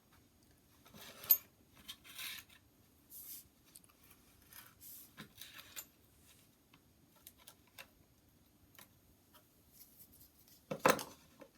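Light clicks, scrapes and rubs of a Swiss Army knife being handled, with a sharp click about a second in and a louder clatter near the end.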